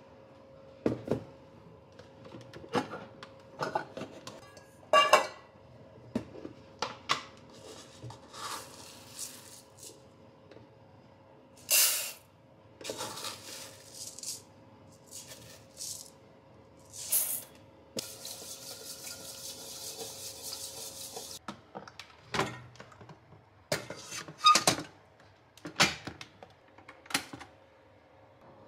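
Kitchen clatter: dishes and utensils clinking and knocking in a string of separate sharp sounds, with a steady hiss for about three seconds about two-thirds of the way in, over a faint steady hum.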